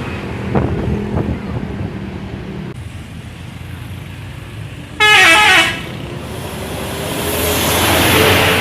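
A bus's multi-tone 'telolet' horn plays a short, loud run of falling notes about five seconds in, over steady engine and traffic noise. After it, a rushing vehicle noise swells toward the end.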